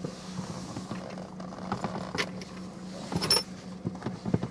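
Car-cabin sound: a steady low hum, with scattered small clicks and rustles of movement, a louder cluster of them about three seconds in.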